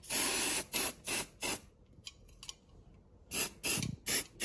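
Aerosol spray-paint can hissing in bursts as the nozzle is pressed: one longer spray at the start, a few quick short ones after it, then more short sprays near the end.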